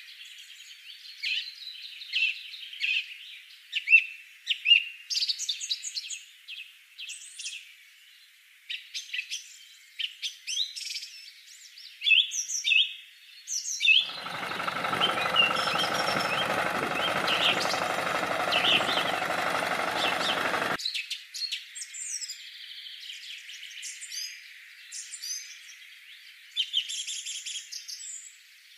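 Songbirds chirping and tweeting in quick, varied calls, all high-pitched with nothing low underneath. About halfway through, a steady rushing noise comes in for about seven seconds, the loudest thing here, and cuts off suddenly.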